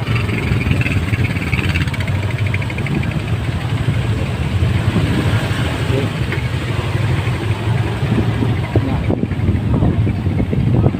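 Motorcycle traffic: several engines running together in a steady low rumble.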